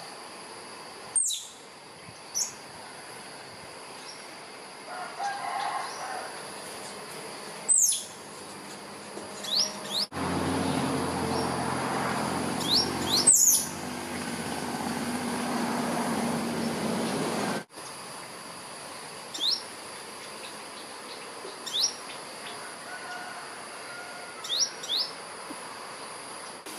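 A squirrel calling: short, sharp calls every few seconds, some sweeping down in pitch and others brief rising chirps, often in pairs, which the uploader takes for a call to a mate. Under them runs a steady high insect drone, and through the middle a louder stretch of rustling noise lasts about seven seconds.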